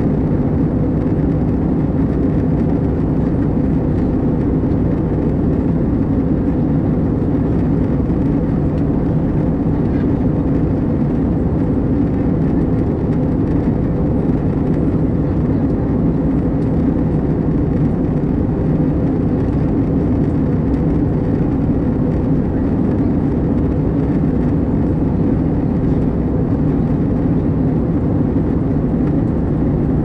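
Steady cabin noise of an Airbus A320-214 in descent, heard inside the cabin: the CFM56 engines and the rush of air over the fuselage make an even, deep noise with a steady hum under it, unchanging throughout.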